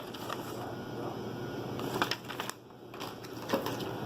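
Rustling and crinkling of paper packaging and printed guides being handled, with a few sharp clicks.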